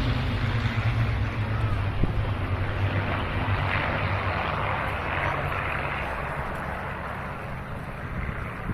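Propeller aircraft engines droning as an aircraft flies by, a steady low hum slowly fading, with wind on the microphone.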